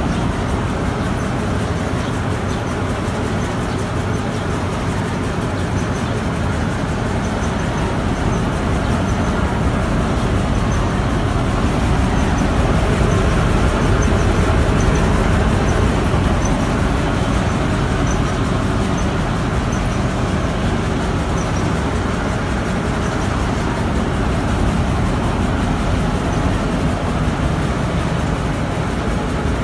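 Freshly overhauled Petkus K-527 grain seed-cleaning machine running steadily, a dense, even mechanical noise that swells slightly midway.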